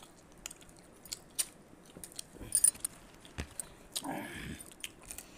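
People chewing and crunching crisp fried snacks, with scattered small clicks. The loudest part is a crisp crunch about two and a half seconds in, and a short murmur follows about four seconds in.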